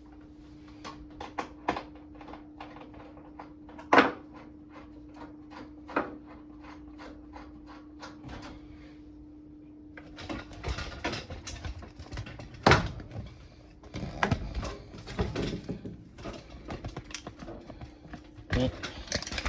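Light clicks and taps of a small screwdriver and hardware being handled, over a steady low hum; from about ten seconds in the handling gets busier, with clattering and scraping.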